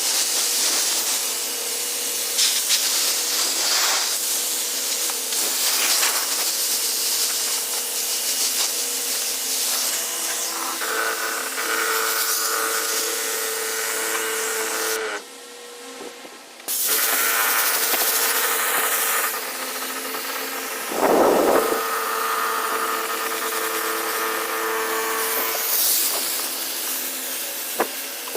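Electric water sprayer running: a small pump motor's hum with the hiss of water spraying onto plants. It cuts out for about a second and a half near the middle, then starts again.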